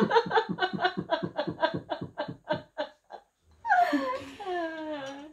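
A woman laughing hard: a fast run of rhythmic ha-ha pulses, about four or five a second, that fades out about three seconds in, then a high, falling squeal of laughter near the end.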